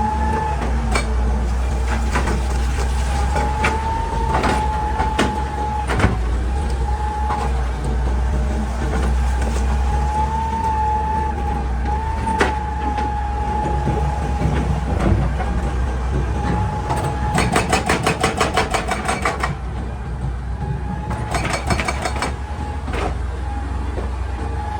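Hitachi EX200 hydraulic excavator working: the diesel engine runs steadily under a wavering hydraulic whine, with scattered sharp knocks of rock. About two-thirds of the way through come two short bursts of rapid, even hammering.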